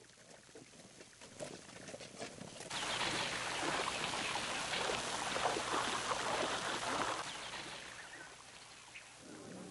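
Water splashing and running in a shallow stream, like someone wading through it. It starts about three seconds in and fades after about seven seconds.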